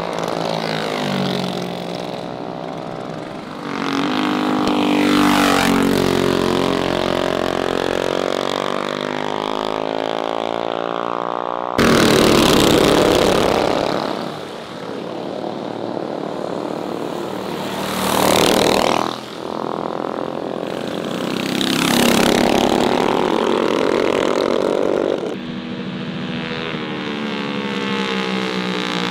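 Mini bike engines revving and passing by, the pitch sweeping up and then down with each pass, several times over. The sound changes abruptly about twelve seconds in.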